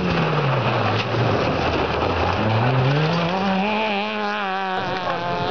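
Rally car's engine on a gravel special stage: its pitch drops as the car slows for the bend, then rises again as it accelerates out and passes close by.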